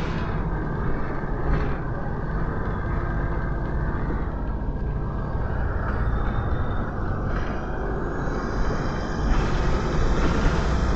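Volvo B7RLE bus driving, heard from inside the rear of the saloon: the rear-mounted six-cylinder diesel engine and road noise make a steady low rumble, growing a little louder about nine seconds in.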